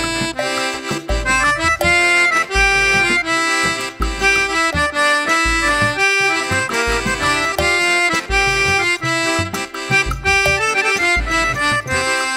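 Background music: an instrumental melody of held, changing notes over a regular bass pulse.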